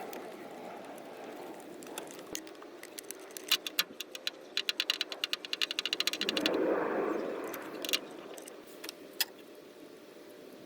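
Hand tools clicking and rattling against metal, with a quick run of rapid clicks about four and a half seconds in and a short scraping rustle after it.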